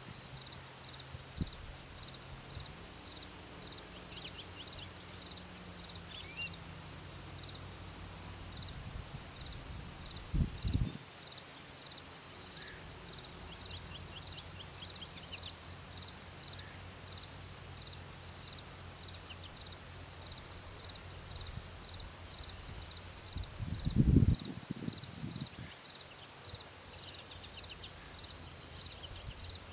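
Insects chirping in a steady, even rhythm of about three pulses a second, with a few faint bird calls. Two low thumps come through, one about a third of the way in and a louder one near the end.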